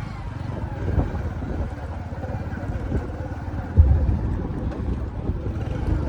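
Low, steady rumble of road traffic with wind on the microphone, and a sharp thump nearly four seconds in.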